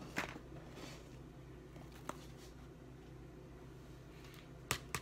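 Quiet kitchen room tone with a few light clicks from handling a plastic measuring spoon while brown sugar is scooped, and two sharper clicks near the end.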